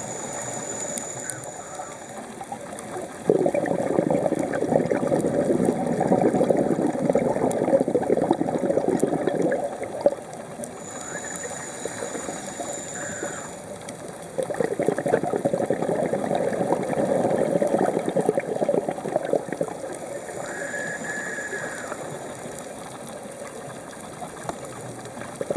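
A scuba diver breathing through a regulator underwater: two long bursts of exhaled bubbles, about six and five seconds each, with quieter inhalations between them that carry a faint high whistle.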